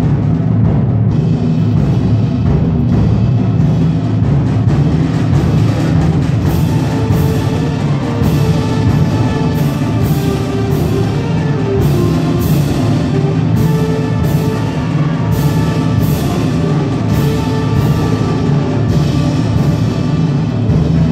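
Concert band playing, with timpani prominent in the low end. Sharp percussion strikes recur about once a second from about six seconds in.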